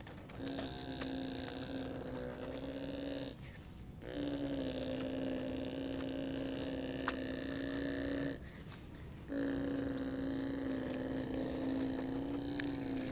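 Motor of a radio-controlled construction model running with a steady buzzing tone, in three spells of a few seconds, each separated by a short pause as it stops and starts again.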